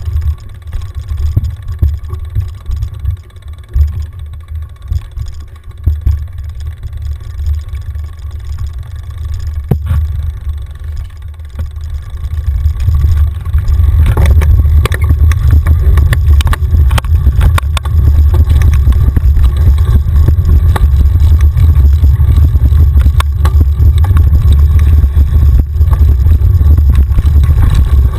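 Mountain bike descending a rough dirt singletrack, heard from a camera on the bike or rider: a steady low wind rumble on the microphone, joined about halfway through by louder, dense rattling and clatter as the bike runs over bumpy ground.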